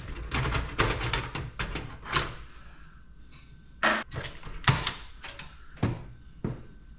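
Computer parts being handled while stripping the computers for scrap: irregular clanks and rattles of metal pieces, with a few sharper knocks in the second half.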